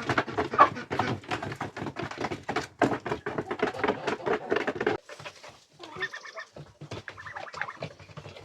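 Farmyard poultry calling, many overlapping calls mixed with quick ticks for about five seconds, then thinning to a few calls.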